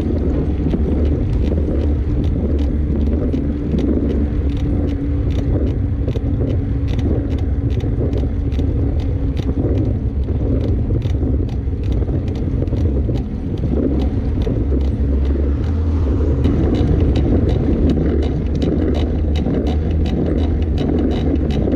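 2015 Trek Remedy full-suspension mountain bike creaking as it is ridden: short sharp creaks about three a second over a steady low rumble of riding noise.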